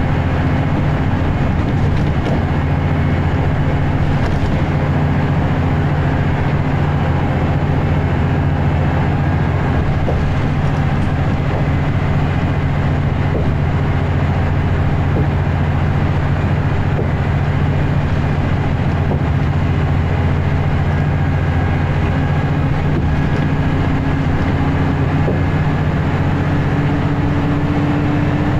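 Scania L94UB bus's rear-mounted diesel engine working hard at motorway speed, heard from inside the saloon as a steady low drone with road and tyre noise: the "motorway thrash" of a service bus held near full power on the motorway.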